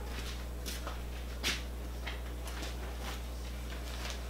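Scattered light rustles and small knocks of items being handled, one a little louder about one and a half seconds in, over a steady low hum.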